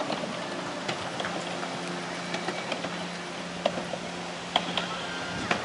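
Riding a chairlift: a steady low hum from the moving lift that grows stronger about two seconds in, with scattered sharp clicks and ticks, the loudest near the end.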